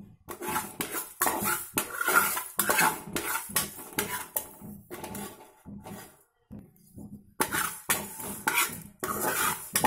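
Metal spoon scraping and clinking against an aluminium kadhai, stirring coriander, cumin and fenugreek seeds as they dry-roast, about two to three strokes a second. The stirring stops for a moment about six seconds in, then starts again.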